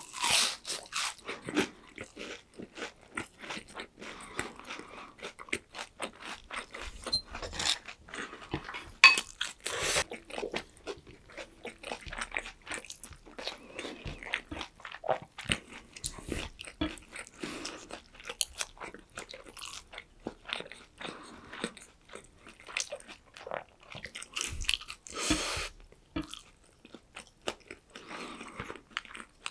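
Close-miked eating of breaded, deep-fried pork cutlet (tonkatsu): many short, irregular crunches of the crisp crust with chewing in between.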